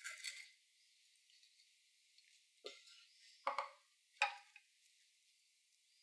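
A few faint clinks and knocks of a metal spoon against cookware as sticky brandy sauce is spooned out: a brief sound at the start, then three short knocks about two and a half, three and a half and four seconds in, the last two loudest.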